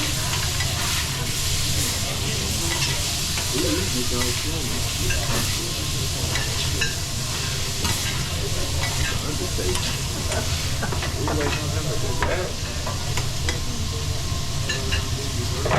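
Food sizzling on a teppanyaki flat-top griddle, a steady frying hiss, with scattered light clicks and taps of metal utensils on the griddle and a steady low hum beneath.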